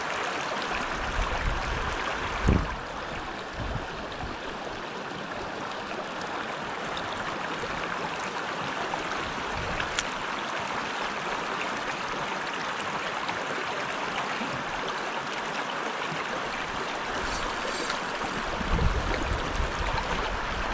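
Steady rush of a shallow river riffle running over stones. A single low thump comes about two and a half seconds in, and a low rumbling sets in near the end.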